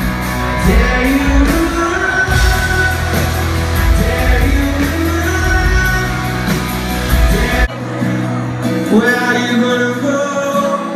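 A live rock band playing, with guitars, heavy bass and drums and a lead vocal over a crowd, recorded loud through a phone microphone. About three-quarters of the way in, the deep bass drops out abruptly and a lighter passage with singing continues.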